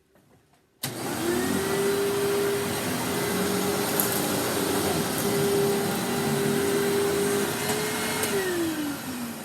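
Hoover WindTunnel Self-Propelled Ultra bagged upright vacuum cleaner switched on about a second in, its motor whining up to speed and then running steadily. Near the end it is switched off and winds down with a falling whine.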